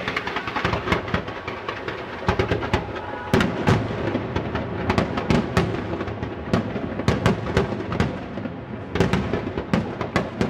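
Aerial firework shells going off in rapid, irregular bangs and cracks, several a second, the loudest bursts about three and a half seconds in.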